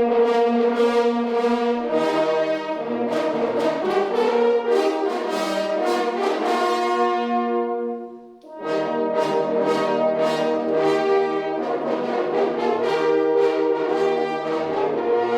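Hunting horns playing a fanfare, several tones sounding together in harmony, with a short break about halfway through before the playing starts again.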